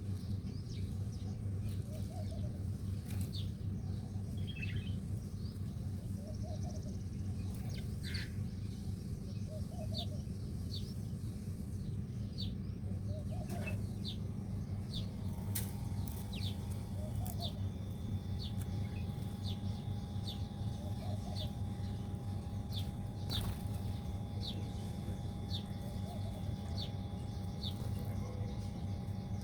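Small birds chirping: many short, quick, falling chirps repeated throughout, over a steady low hum. A faint steady whine joins about halfway through.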